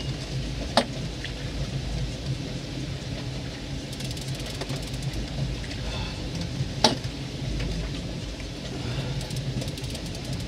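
Boat engine running steadily at low speed over a steady hiss, with a sharp knock about a second in and a louder one near seven seconds.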